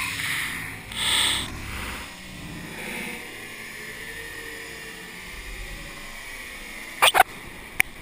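Ocean wave crashing over a sandbag jetty and spraying the camera: loud rushes of surf in about the first two seconds, then a steady wash of whitewater, with a few sharp knocks near the end.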